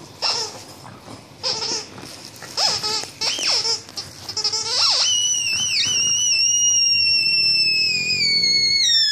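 Squeaker inside a plush fox dog toy squeaking as a dog mouths and presses it: about five short squeaks in the first five seconds, then one long high squeal that slowly falls in pitch for about four seconds.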